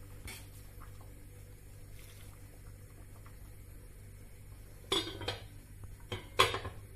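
Water boiling in a large metal pot while a utensil stirs glass noodles, a faint steady sound with soft knocks. Near the end a metal lid is set on the pot with a few sharp clanks.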